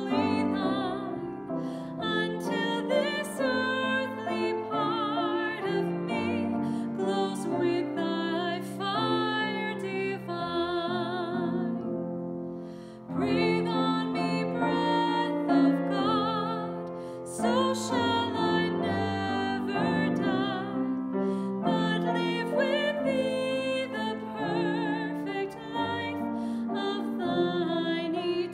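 A song sung with vibrato over piano accompaniment, pausing briefly between phrases about halfway through.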